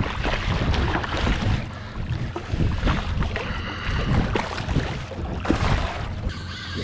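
Wind buffeting the microphone over water sloshing around a small boat, an irregular rumbling noise with scattered splashes.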